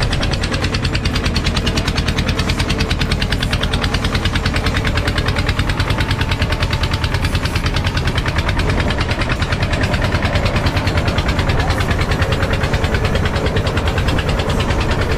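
Fishing boat's engine running steadily under way, with a rapid, even pulse.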